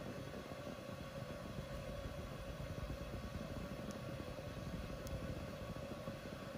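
Steady background hum and hiss, constant throughout with no distinct events: machine-like room noise.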